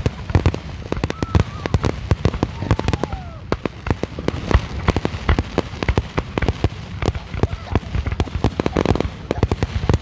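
Fireworks going off in a rapid, irregular string of sharp pops and bangs, several a second.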